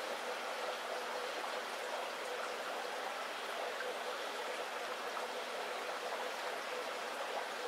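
Air-driven aquarium sponge filters bubbling, a steady trickling water noise, with a faint steady hum underneath.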